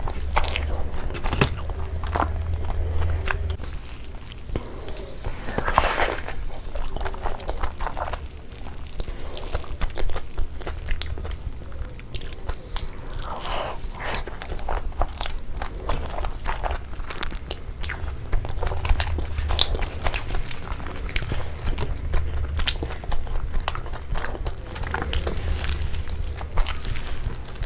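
Close-miked biting and chewing of a giant frankie, an Indian stuffed flatbread roll, with irregular crunchy bites and mouth clicks.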